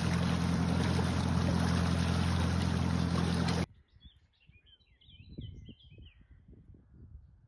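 Narrowboat engine running steadily with a constant low hum, stopping abruptly about three and a half seconds in. After it, a few faint bird chirps.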